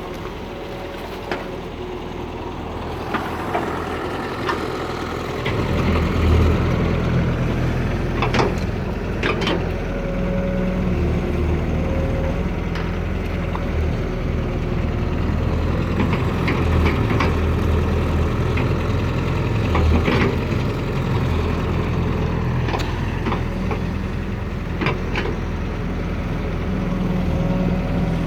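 Excavator's diesel engine running, getting louder and heavier about five seconds in as it works under load, with scattered sharp knocks.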